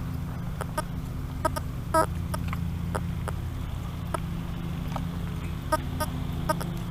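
Teknetics T2 metal detector being swept, its steady low hum broken by short scattered chirps as the coil passes over targets, about eight in all, the clearest about two seconds in.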